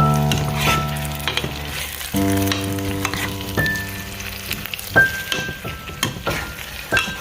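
Food frying and sizzling in an oily pan, with the clicks and scrapes of a utensil stirring it. Background music with sustained chords plays over it.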